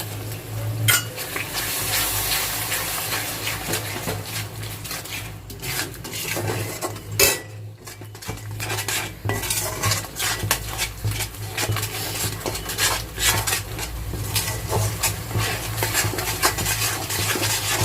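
A spoon stirring and scraping spice paste (masala) being fried in a metal pan, with many irregular clinks and scrapes against the pan and one louder clack about seven seconds in.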